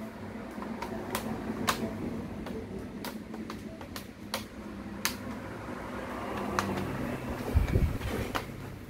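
Plastic screen bezel of a Toshiba Satellite C660 laptop being pressed back onto the lid, its clips snapping in with about a dozen sharp, irregular clicks. A dull thump comes near the end.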